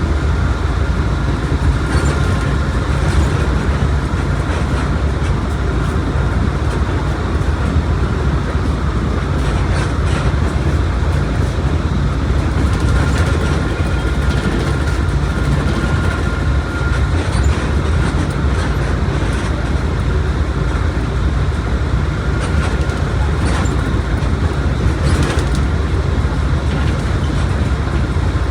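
Mercedes-Benz OF1721 BlueTec 5 bus under way: steady low rumble of its front-mounted diesel engine and the road, with a faint high whine that comes and goes and scattered light rattles.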